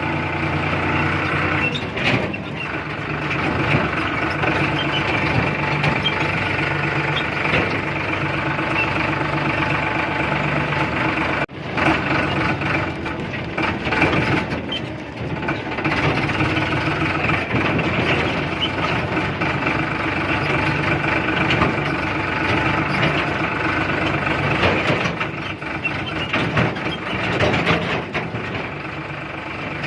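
An engine running steadily and evenly, with a brief break about eleven and a half seconds in.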